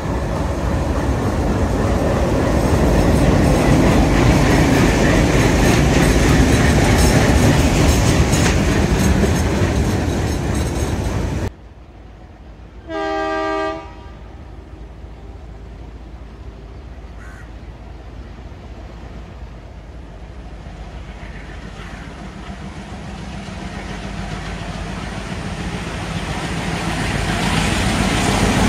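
A train passing at speed with loud wheel clatter, which cuts off suddenly about eleven seconds in. A locomotive horn then sounds once for about a second over a low rumble. The rumble slowly builds toward the end as another train approaches.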